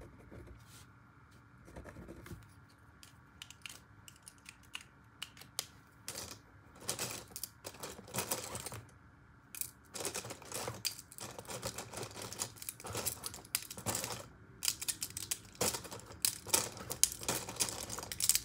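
Felt-tip marker writing on lined notebook paper on a hard table: irregular quick scratchy strokes and taps, sparse at first and busier from about six seconds in.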